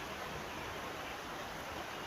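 River water rushing steadily, an even, unbroken hiss.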